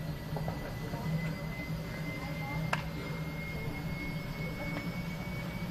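Eurocopter Super Puma helicopter's twin turboshaft engines running on the ground with the main rotor turning: a pulsing low hum under a thin turbine whine that rises slowly in pitch as the engines spool up for takeoff. Heard through window glass, with one sharp click about halfway through.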